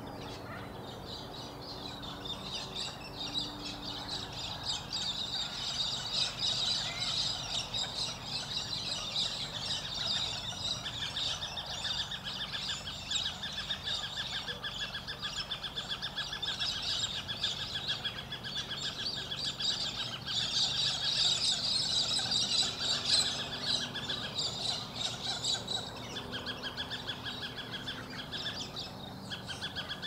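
Many wild birds calling at once: a dense chorus of rapid, high chirps and chatter. It grows louder a few seconds in and is loudest a little past the middle.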